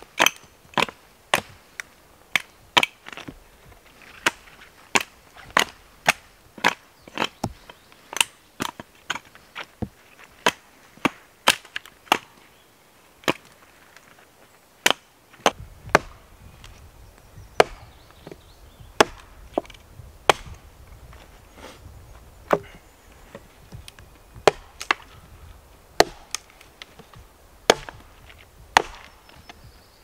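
A hatchet chopping into a thin wooden pole: a long run of sharp, separate chops, about one or two a second and uneven in strength.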